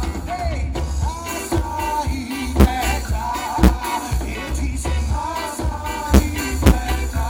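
Live reggae band playing, with a heavy bass line and drum hits under a singer's voice.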